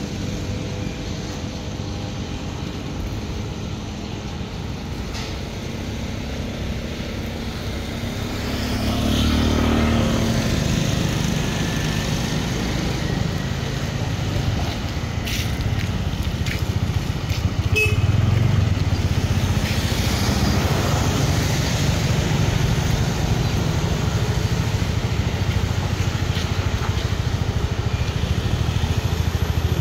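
Steady rumble of road traffic, getting louder about a third of the way in and staying louder, with a few faint clicks partway through.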